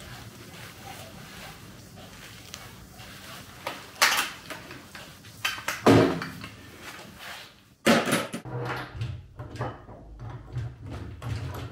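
Workshop handling sounds of hard parts being knocked and scraped, likely metal: sharp knocks about four and six seconds in, then a run of quicker clicks and rattles over a low hum.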